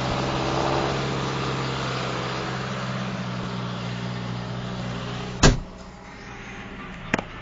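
John Deere 6420 tractor's four-cylinder diesel engine running steadily, heard through the open cab door. About five and a half seconds in there is a loud bang as the cab door shuts, and the engine sounds quieter and duller after it. A smaller sharp click comes near the end.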